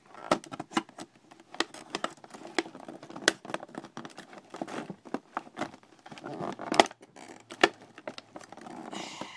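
Hard plastic figure-stand parts and packaging being handled: an uneven run of sharp clicks and taps with rustling between them.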